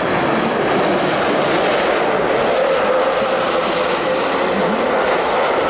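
Renault Zoé electric ice-racing car sliding past at speed: a steady rush of tyres on snow and ice and thrown snow, with a faint electric-motor whine held through the middle.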